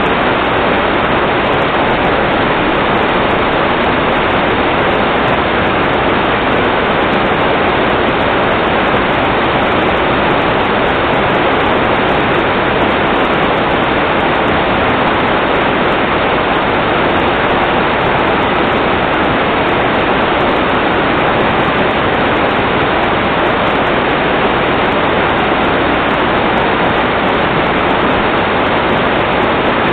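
Floodwater rushing steadily, a loud unbroken wash of water noise.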